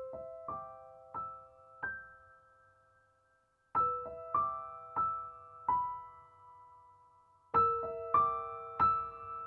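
Soft solo piano music: slow phrases of a few struck notes, each left to ring and fade, with a gap of about a second and a half in the middle where the notes die away.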